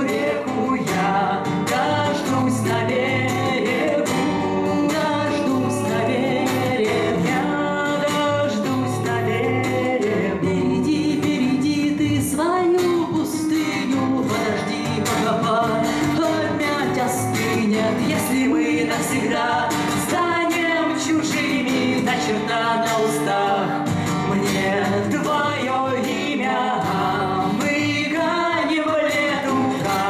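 Acoustic guitar strummed under women's singing: a live bard-song (авторская песня) performance continuing without a break.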